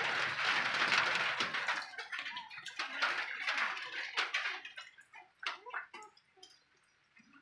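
Mother dog licking a newborn puppy: irregular wet licks and smacks that thin out and fade towards the end, under a steady hiss in the first two seconds.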